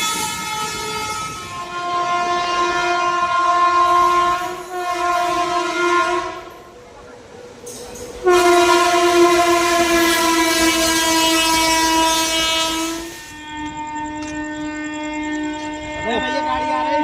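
Indian locomotive air horn sounding a series of long blasts, the longest about five seconds. A lower-pitched, steadier horn tone takes over near the end.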